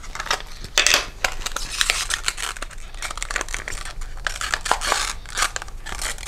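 Packaging being torn open and crinkled by hand, with scattered clicks and rustles, as a new servo is unpacked.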